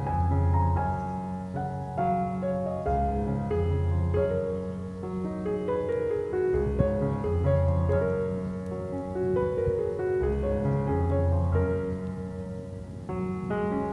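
Soft, slow relaxation music on piano: gentle melody notes over a bass note that changes about every two seconds.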